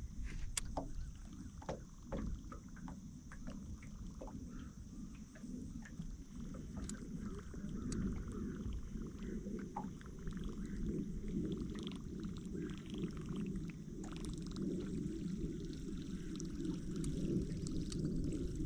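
Water sloshing and lapping against a small fishing boat's hull, with a steady high insect drone and scattered light clicks.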